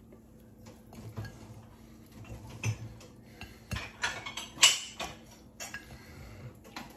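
Light clicks and knocks of crockery as fish fingers are set down one by one on a ceramic plate. They come at scattered moments, the loudest about two-thirds of the way through.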